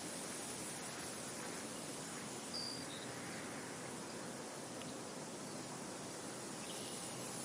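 Steady wind noise, with a short, high bird call about two and a half seconds in and a fainter second one just after.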